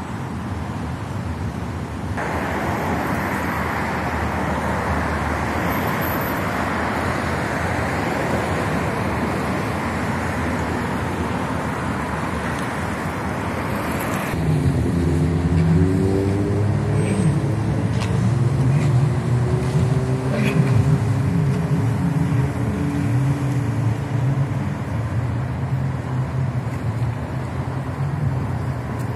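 Street traffic: a steady rush of cars going by on a city road. About halfway through the sound changes suddenly to a louder, lower hum of heavier vehicle engines running past.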